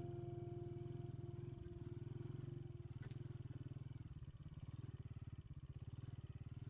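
Motorcycle engine running at low, steady revs while riding a rough dirt track, heard as a rapid, even low pulsing.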